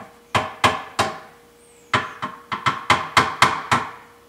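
Spoon knocked again and again against the blender jar to shake off a spoonful of sticky almond butter: sharp knocks with a short ring, about four a second, with a pause of nearly a second after the first three.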